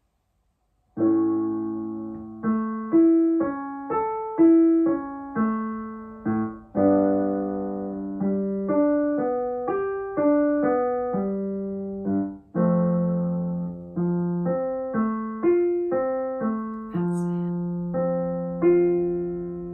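Piano playing a run of broken chords, single notes following one another over struck chords, each note fading after it is struck; it starts about a second in.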